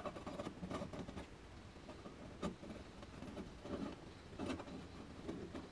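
Faint, scattered scrapes and light knocks from a welded horseshoe hook being handled and turned on a steel welding table.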